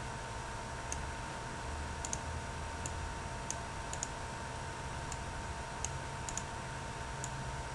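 About a dozen faint, irregularly spaced computer mouse clicks over a steady background hiss and hum with a thin constant tone.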